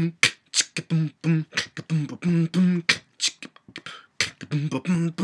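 A man beatboxing: sharp mouth clicks and hissing snare and hi-hat sounds alternate in a quick rhythm with short hummed bass notes, with a brief lull a little past the middle.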